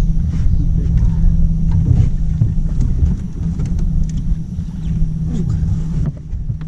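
Boat motor running with a steady hum over a low rumble.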